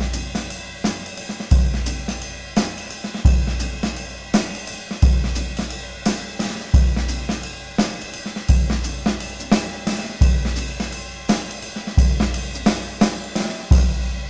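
Drum kit played in a jazz groove, cymbal and snare strokes over an 18-inch Gretsch Broadkaster bass drum. The bass drum lands about every second and three-quarters with a warm, low boom that rings on. It is tuned open with coated single-ply heads, only a small gel pad on the batter head, and a soft fleece-covered felt beater.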